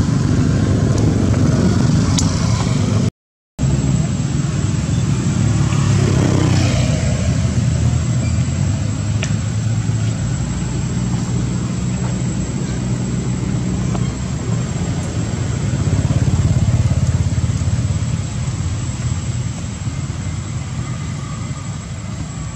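A motor running steadily with a low, even hum, the sound cutting out for a moment about three seconds in.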